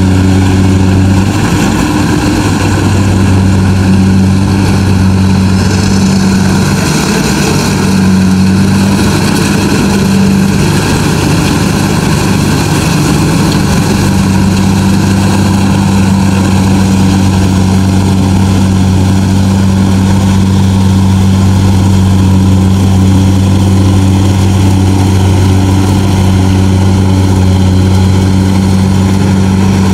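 Kubota DC-70G Plus combine harvester running steadily at a constant engine speed: an even diesel drone with a dense mechanical rushing noise over it.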